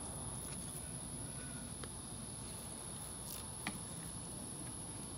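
Cleaver cutting through chunks of raw beef onto a plastic cutting board: a couple of soft knocks, the clearest near the end. A steady high-pitched whine runs underneath.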